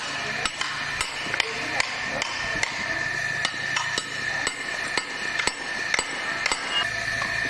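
Hammers striking steel drum-brake shoes to chip off the old worn brake lining: sharp metallic blows, about two a second, without pause.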